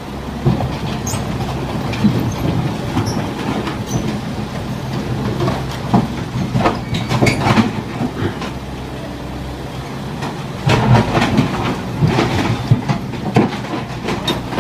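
Excavator's diesel engine running under load, with its steel tracks clanking and squealing as it climbs onto a truck. The clanks come in uneven clusters, heaviest about halfway through and again near the end.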